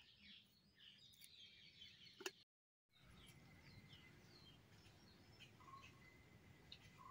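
Faint birdsong: scattered short chirps and calls over quiet outdoor ambience. A sharp click a little over two seconds in, then the sound cuts out for a moment.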